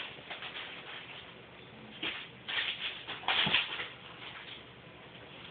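Kittens playing: paws scrabbling on a hard floor and brushing against a cardboard box, in a few short scuffling bursts between about two and four seconds in.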